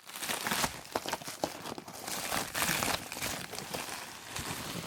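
Packing material and a cardboard shipping box being handled while unpacking: irregular crinkling and rustling with scattered sharp clicks and taps.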